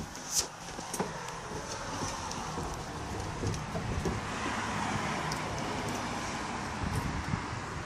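A car going past on the street, its noise swelling through the middle and fading again, with a sharp knock about half a second in.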